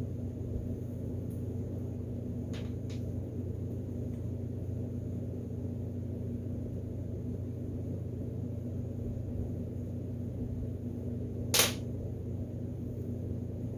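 A steady low hum, with two faint clicks a few seconds in and a single sharp click near the end, the loudest sound here.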